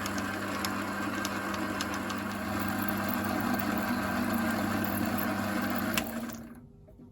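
Small bench-top lathe's motor running with a steady hum. About six seconds in it is switched off with a click and quickly spins down.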